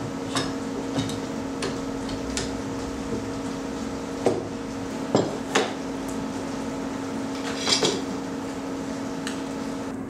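Steel bar clamps and quick-release clamps clinking and knocking as they are set and tightened on glued wood laminates, several sharp metallic clinks over a steady hum.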